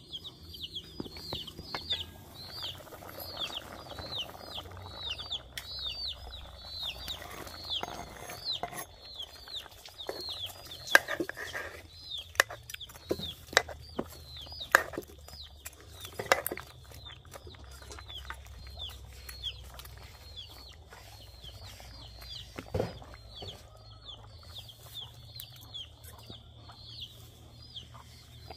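Chickens cheeping: a steady run of short high chirps, about three a second, with scattered sharp knocks and clatters, the loudest about eleven seconds in.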